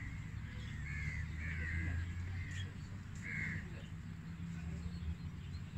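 Birds calling repeatedly in short, harsh calls, over a steady low rumble.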